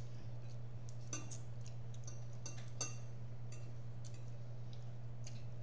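A fork clicking and clinking lightly against a plate, with scattered small eating clicks, over a steady low hum. The clearest clinks ring briefly, about a second in and again near three seconds.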